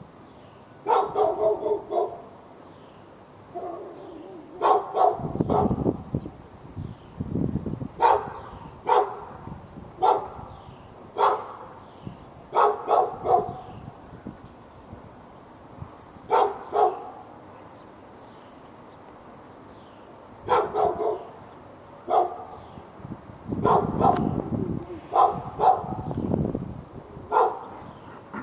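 A dog barking over and over in quick runs of two to five barks, with pauses of a second to several seconds between runs: persistent nuisance barking aimed at the dog next door.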